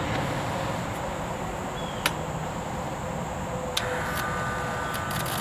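Steady mechanical hum with a sharp click about two seconds in. About four seconds in, another click comes as the rebuilt septic aerator diaphragm air pump is switched on at its control box. A faint steady whine then joins and carries on.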